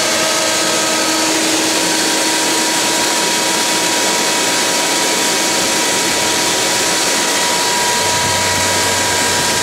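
Large shop vac running at a steady speed with a loud rush of air and a steady whine.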